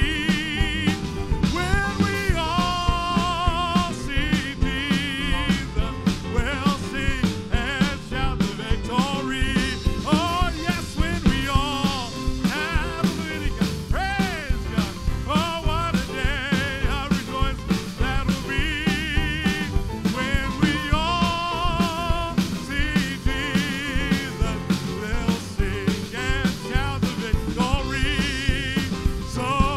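Band music with a steady drum beat and a wavering lead melody with vibrato, in a rock or country style.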